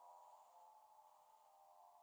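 Near silence, with several faint steady tones held at a middle pitch and a faint high shimmer above them.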